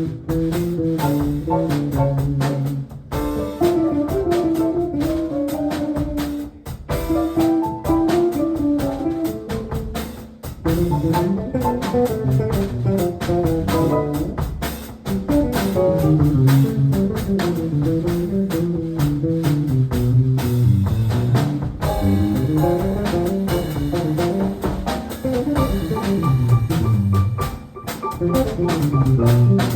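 Jazz piano trio playing: piano lines over a moving bass line, with drums and cymbals keeping time.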